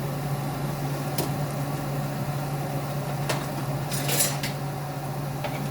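Onions being sautéed in a pan, with a utensil scraping and knocking against the pan a few times, the longest scrape about four seconds in, over a steady low hum.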